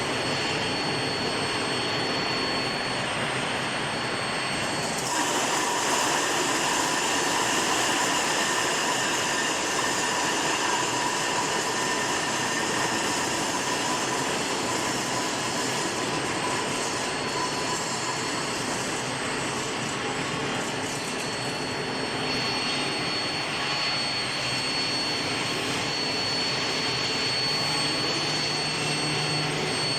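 Steady industrial noise of a long-bar induction hardening production line: a constant rushing hiss with a thin high whine. The whine drops out about five seconds in, as the hiss grows a little louder, and returns near the end.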